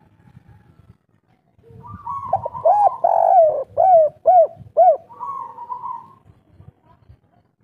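Spotted dove cooing one 'kuk 3' phrase: a long note, then three short arched coos about half a second apart, trailing off softly.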